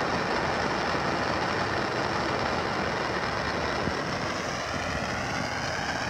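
Handheld propane torch burning with a steady hiss under a paper cup of water that is just starting to boil.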